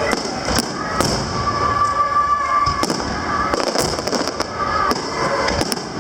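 Aerial fireworks bursting overhead: a series of sharp bangs, with a quick run of pops about four seconds in.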